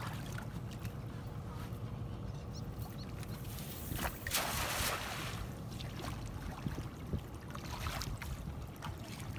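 Cast net splashing down onto river water about four seconds in, a brief splash of about a second as its weighted rim and mesh land, over a steady low rumble.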